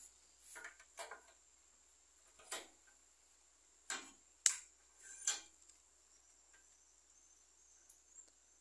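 Small iron pieces knocking and clinking against a bench vise as they are handled and set in its jaws: a handful of short clanks over the first five seconds, the sharpest about four and a half seconds in. A faint steady high whine runs underneath.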